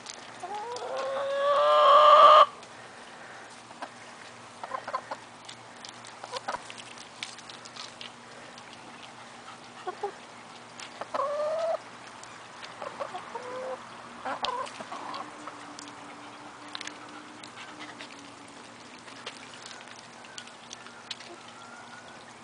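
Backyard chickens calling. A loud rising squawk lasts about two seconds at the start and a shorter rising one comes around eleven seconds in, with a few softer clucks and scattered short clicks between them. A faint steady hum runs underneath.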